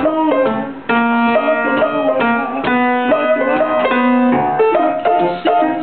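Instrumental music: a passage of quick plucked-string notes between sung lines.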